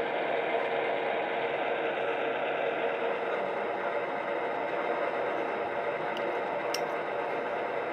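A 1/14 scale RC hydraulic excavator running: a steady mechanical whir and hiss with a faint steady hum underneath, and a light click about seven seconds in.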